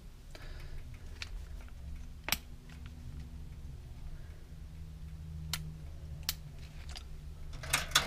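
A few isolated sharp clicks, one about two seconds in and two more later, then a short cluster of clicks near the end, from handling a CO2 BB pistol with a clip-on tactical flashlight, over a low steady hum.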